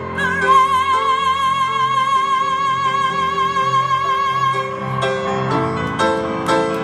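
Live pop ballad performance: a female singer holds one long high note with wide vibrato over band and piano accompaniment. The note ends about two-thirds of the way through while the band keeps playing.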